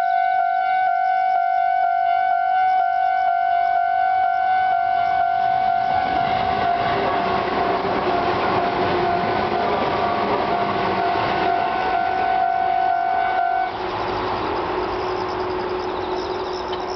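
Japanese railway level crossing warning bell ringing in a steady repeating pattern as a train passes over the crossing. The train's running noise swells in about a third of the way through and continues after the bell stops abruptly, about three-quarters of the way in.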